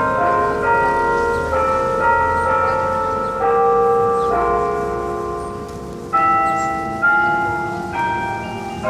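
Tower bells striking a slow sequence of notes at different pitches, about one stroke a second, each stroke ringing on under the next. The strokes pause for about two seconds a little past the middle, leaving a fading ring, then resume.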